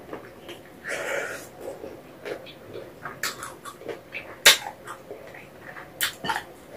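Close-miked mouth sounds of a person eating spicy braised chicken feet: wet chewing, sucking and lip smacks, with a breathy rush about a second in and one sharp loud click about four and a half seconds in.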